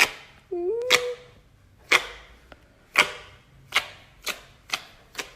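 Slime being pressed and squished, giving sharp popping clicks. They come about once a second at first, then quicker, roughly every half second, in the second half. A short rising squeak-like tone comes about half a second in.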